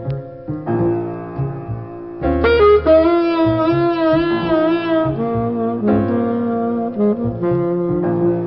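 Background instrumental music: a slow melody over low bass notes and chords, the lead holding a long wavering note from about three to five seconds in.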